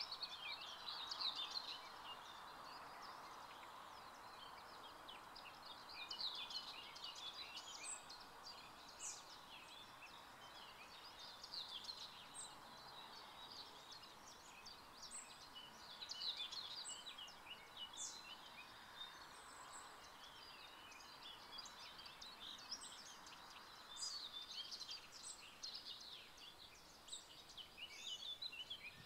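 Several songbirds singing in spruce woodland: short twittering and whistled phrases every few seconds, some overlapping, over a faint steady rushing hiss.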